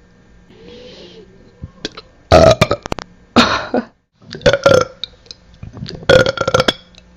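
A person burping loudly, about four times in a row, each burp short with gaps of about a second between them.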